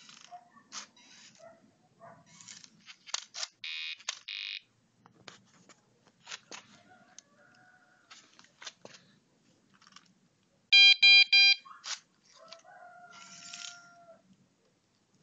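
Buzzer on a homemade Arduino robot, driven through a MOSFET, beeping three times in quick succession with a harsh, buzzy tone about two-thirds of the way through. There is a shorter buzzy burst earlier, and scattered small mechanical clicks and rattles run throughout.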